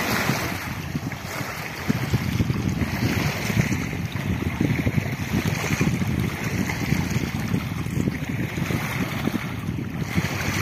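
Wind noise buffeting the microphone, over small waves lapping at a pebble shore.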